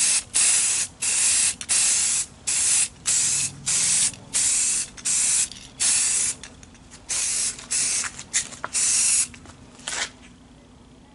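Aerosol can of Rust-Oleum High Performance gloss black enamel spraying in a quick series of short hissing bursts, roughly one every two-thirds of a second, as a second coat is laid on a mirror cover. The bursts stop about ten seconds in.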